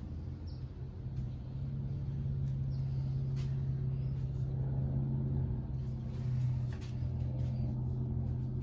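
A steady low mechanical hum, with a few faint scrapes of a plastic spreader smoothing body filler over the cab's sheet metal.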